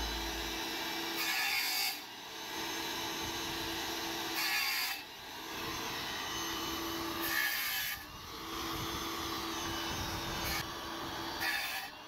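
Tool work on hard material: repeated scraping or cutting strokes, about one every three seconds, each ending in a brief harsher hiss.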